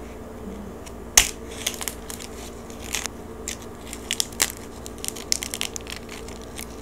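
Crispy roast pig skin on a lechon head cracking and crackling as it is broken open. There is one sharp crack about a second in, then a run of small, quick crunchy crackles as fingers pull the brittle skin apart.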